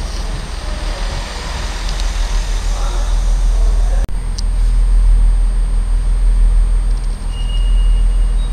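Great Western Railway diesel multiple unit running past, a steady rumble with a low engine drone. About four seconds in the sound breaks off and gives way to a steadier, heavier low rumble.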